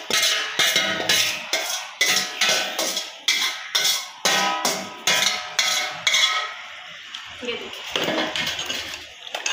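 Metal spoon knocking and scraping against a steel bowl as the marinade is emptied into the cooking pot, about two ringing knocks a second. The knocking stops about six seconds in, leaving softer scraping and stirring in the pot.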